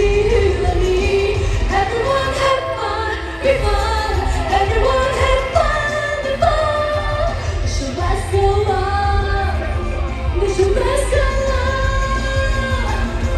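Live pop song at an outdoor concert: a singer's voice carrying the melody over a full band through the PA system, with a heavy, steady bass.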